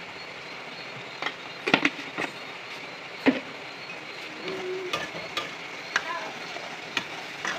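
Metal spoon and spatula clinking and knocking against a steel wok in irregular single strikes while cooking, over a steady low hiss from the gas stove and frying pan.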